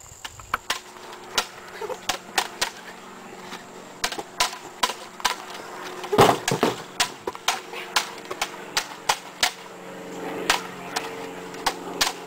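Plastic toy lightsabers clacking together again and again in a mock sword fight, in sharp irregular knocks, often several a second.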